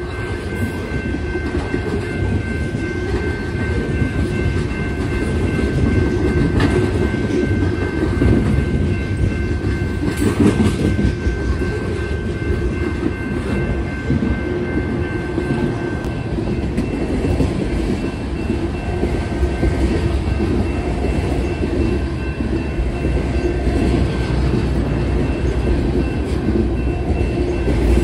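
Freight cars of a long train rolling past at close range: a steady low rumble with wheels clacking over the rail joints.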